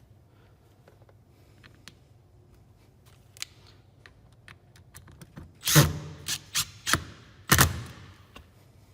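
Light ticks of small metal parts being handled, then a short run of louder knocks and clatter near the end, as a screw is refitted to a chainsaw's chain brake assembly with a screwdriver.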